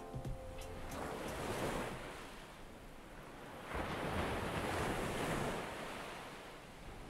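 Sea waves breaking on a sandy shore, the surf swelling and ebbing, with two louder washes: one about a second in and a bigger one just past the middle that fades away over a couple of seconds.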